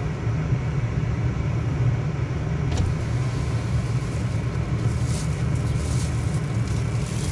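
Car engine idling with a steady low rumble, heard from inside the car with the door open. A few faint ticks come in the second half.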